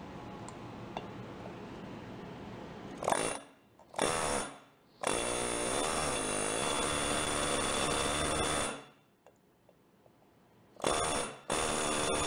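Pneumatic air drill pressed into the centre hub of a steel go-kart wheel, running in bursts. Two short blips come about three seconds in, then a long run of several seconds whose whine wavers as it loads up, then another run near the end.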